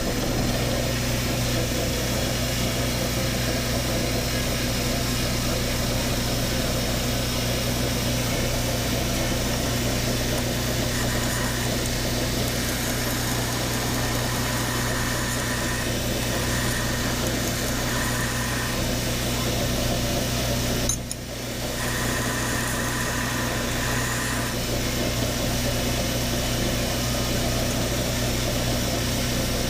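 Belt grinder running on a 1-inch small wheel, its sanding belt grinding the inside curves of a D2 tool-steel knife blank: a steady motor hum under a continuous gritty hiss. The sound briefly drops about two-thirds of the way through, then picks up again.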